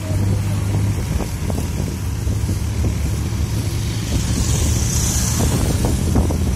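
Bus engine running with a steady low hum while under way, with road noise and rattling from the body. A brief hiss rises over it about four seconds in.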